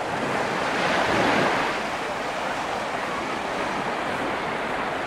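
Mediterranean surf breaking and washing up a sandy beach: a steady rush of waves that swells about a second in.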